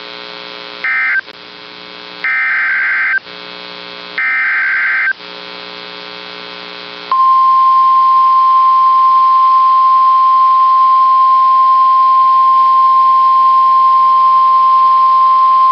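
NOAA Weather Radio emergency alert signal played through a radio speaker. Three short bursts of SAME digital header data tones come about a second apart over a low steady hum. About seven seconds in, the steady single-pitch 1050 Hz warning alert tone starts and holds for about nine seconds, announcing a new warning message.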